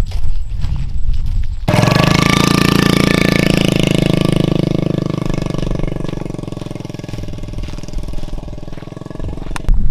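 A small engine running with a steady, rapidly pulsing drone. It starts abruptly about two seconds in, grows fainter after the middle, and cuts off near the end.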